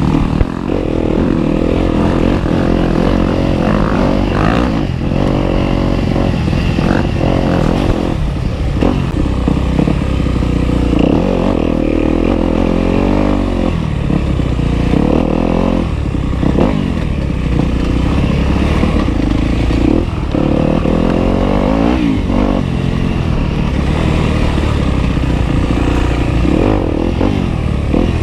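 Dirt bike engine on a trail ride, revving up and easing off over and over as the throttle changes, with scattered knocks and clatter from riding over rough ground.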